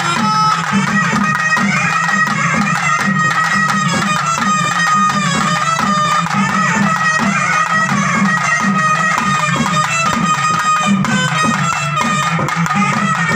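Traditional festival music: a wind instrument holds long high notes over steady, evenly spaced drumbeats.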